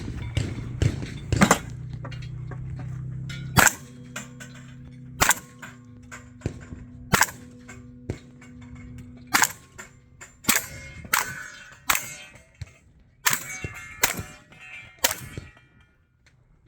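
Mossberg 940 JM Pro 12-gauge semi-automatic shotgun firing about a dozen shots at uneven intervals, some in quick pairs, with struck steel targets ringing after several of them.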